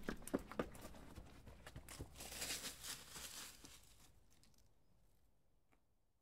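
Footsteps crunching on a dry dirt forest trail littered with leaves, fading away to near silence toward the end.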